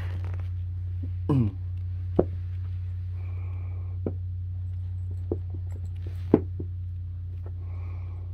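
A basset hound puppy chewing and tugging at a slipper on a carpet: scattered soft clicks and knocks, one short sound falling in pitch about a second in, over a steady low hum.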